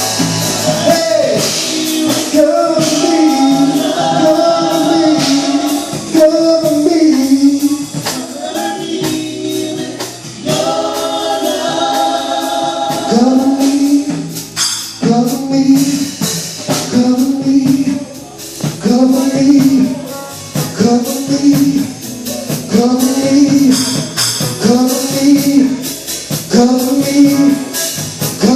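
Live gospel praise team singing with band accompaniment and tambourine. In the second half the singers repeat the same short phrase over and over to a steady beat.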